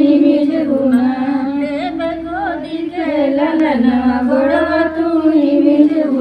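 Women singing a slow devotional song without instrumental accompaniment.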